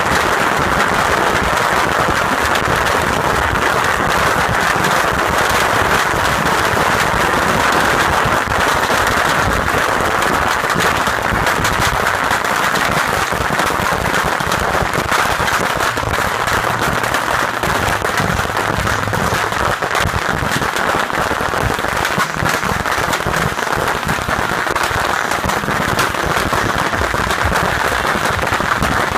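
A beehive fireworks launcher, a rack of thousands of bottle rockets, firing in one continuous, dense crackle of rocket bangs and whooshes at a steady, high level.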